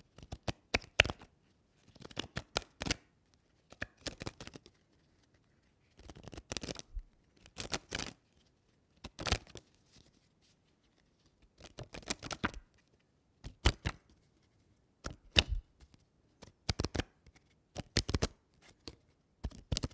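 Paper being torn in a series of short rips, each a quick crackling tear lasting under a second, about a dozen separate rips with brief pauses between them.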